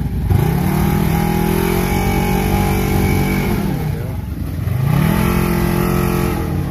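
Off-road vehicle engines revving under load as a side-by-side stuck in deep mud is towed out by an ATV: one rev held high for about three seconds, a drop, then a second rev held for nearly two seconds.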